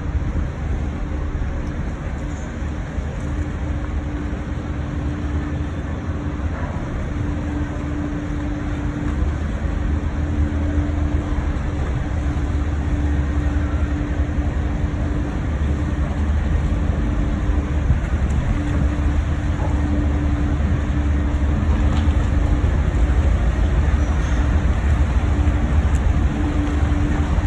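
Steady low drone of the high-speed catamaran 'Big Earth' under way, with a humming tone that drops in and out. It grows a little louder about eight seconds in.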